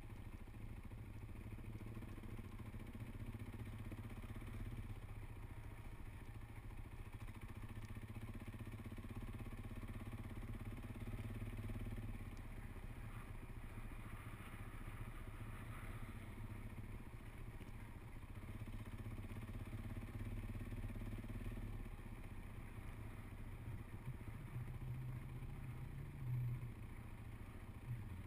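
Motorcycle running at a steady, low riding speed, heard as a continuous low engine rumble with road noise, from a KTM 530 EXC single-cylinder four-stroke enduro bike. There is a brief louder moment near the end.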